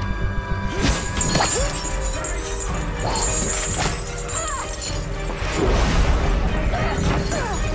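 Action-scene soundtrack: dramatic music under a series of crashes and impacts, with a shattering sound about a second in and more crashes around three to four seconds in.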